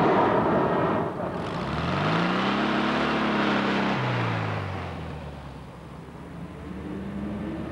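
Motor vehicle noise: a loud rushing noise, then an engine whose pitch climbs and falls back over about three seconds.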